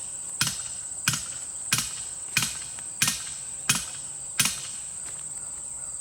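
Seven evenly spaced hammering blows, about one every two-thirds of a second, stopping about four and a half seconds in, over a steady high-pitched insect chorus.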